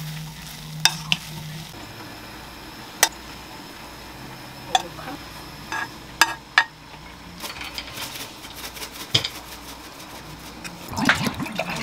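Spaghetti being tossed and stirred in a nonstick frying pan over a faint sizzle, with scattered sharp clicks of the utensil against the pan, then scraped out of the pan into a ceramic bowl. A low hum stops about two seconds in, and a run of clattering comes near the end.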